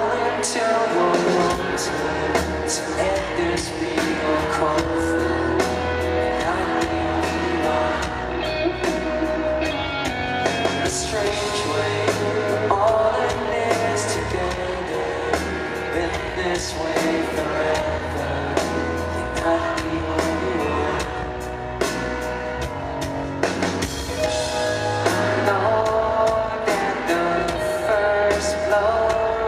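Live pop-rock band: a man singing lead into a stage microphone over electric guitar, bass and drums, with a steady drum beat.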